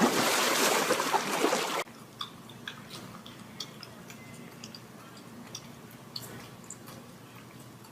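Water splashing loudly for about two seconds, cut off abruptly, followed by faint scattered drips and small ticks.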